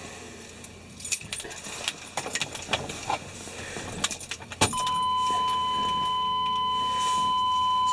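Keys jangling with small clicks and rattles, then a sharp click about two-thirds of the way through and a steady, high electronic warning tone from the Chevrolet truck's dash that holds without a break as the ignition is switched on.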